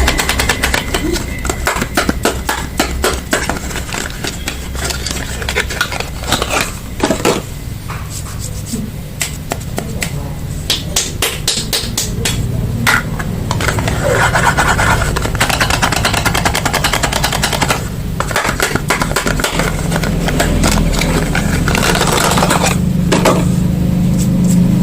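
Packaging crackling and rustling as bars of soap are unwrapped: a dense run of small clicks and crinkles, over a steady low hum.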